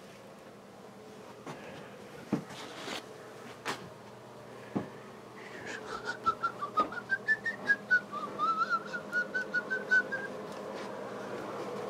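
A few scattered clicks and knocks, then, from about halfway in, whistling: a quick run of short high notes, about five a second, wavering up and down for roughly five seconds.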